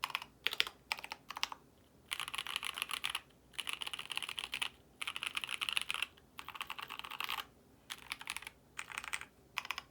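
Typing on a custom 65% mechanical keyboard (KBD67 Lite R3) with lubed C³Equalz x TKC Kiwi tactile switches on a polycarbonate plate and GMK Kaiju ABS keycaps. The keystrokes come in quick bursts of about a second each, with short pauses between them.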